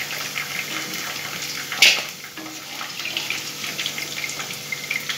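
Boneless chicken pieces sizzling and crackling in hot oil in a kadai as they are lifted out with a wooden spatula, with one sharp knock about two seconds in.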